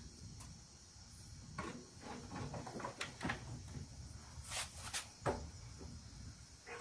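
Plastic interior trim panel being handled and fitted into place: a scattering of faint clicks and knocks.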